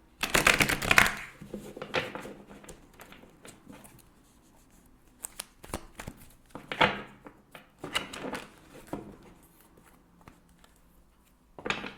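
Tarot cards being shuffled and handled: a dense flurry of card clicks in the first second, then scattered clicks and a few shorter flurries.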